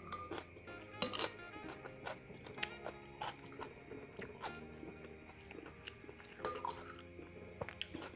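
A metal spoon clicking and scraping against a glass bowl as fried rice is scooped up, with chewing between the scoops, over background music.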